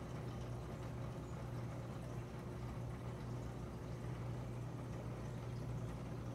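Aquarium filter running: a steady low hum with a faint wash of moving water.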